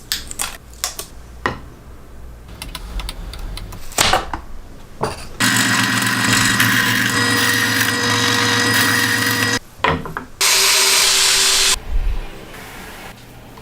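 Knocks and clicks of a Makita power tool being handled, then the tool running at steady speed for about four seconds, stopping briefly, and running again for about a second and a half.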